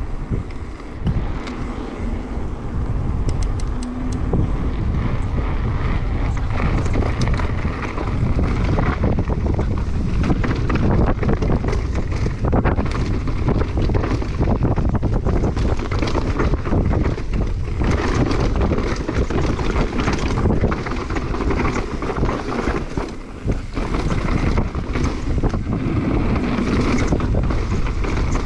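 Downhill mountain bike ridden fast, with wind buffeting the helmet camera's microphone, tyres rolling over dirt and stones, and the bike rattling with frequent sharp knocks over rough ground. The first few seconds, on pavement, are smoother, mostly wind.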